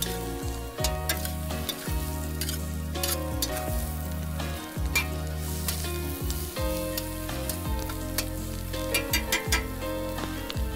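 Food sizzling as it fries in a pan, stirred with a utensil that clicks against the pan many times, with background music playing.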